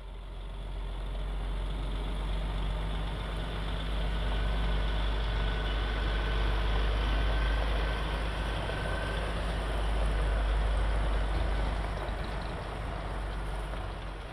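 Heavy truck's diesel engine running with a steady low rumble, growing louder over the first few seconds and easing off and fading out near the end.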